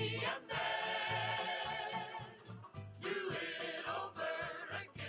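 Background music: a melody over a pulsing bass beat.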